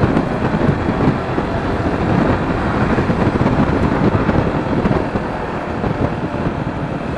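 Sinnis Terrain T125's 125cc single-cylinder engine running steadily while riding on the road, mixed with wind noise on the microphone.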